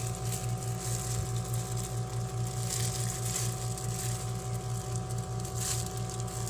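A steady mechanical hum with a few constant tones runs throughout. Over it come faint, brief rustles of a disposable plastic glove and silicone spatula working stiff powdered-milk dough in a glass bowl.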